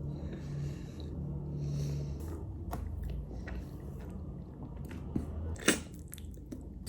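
A person biting into and chewing a syrup-soaked tulumba (fried dough pastry), with soft wet chewing over a low steady hum and a couple of sharp clicks near the end.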